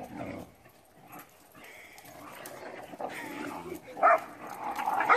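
Small dogs play-fighting, with a short sharp bark about four seconds in and another near the end.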